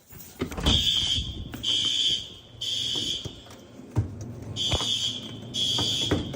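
Fire alarm horn sounding a high-pitched beep in groups of three with a pause between, the temporal-three evacuation pattern. A low rumble and a few knocks run underneath.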